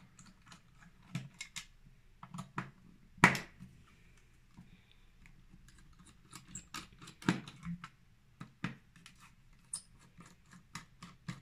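A screwdriver undoing the captive screws in the rubber feet on the underside of an Intel NUC mini PC: scattered light clicks and scrapes of metal on screw heads, with a sharper click about three seconds in and another about seven seconds in.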